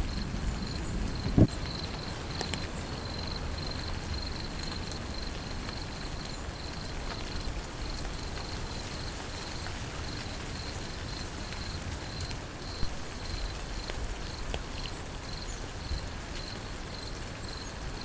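Steady rain with an insect, cricket-like, chirping in an even pulsing rhythm, and a single sharp knock about a second and a half in.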